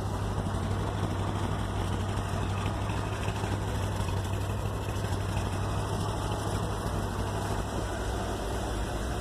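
Engine idling steadily with a low, even hum, fed by a freshly rebuilt Holley 670 Street Avenger carburetor that has not yet been adjusted, on its first run after the rebuild.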